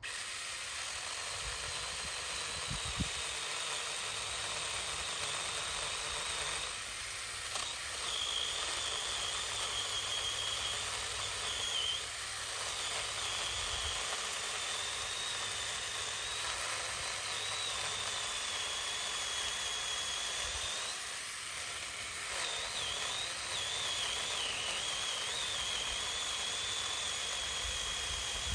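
Saker 6-inch mini electric chainsaw running under load, cutting through a thick dead pine branch: a steady high whine over a hiss, wavering in pitch as the chain bites, with a few brief dips.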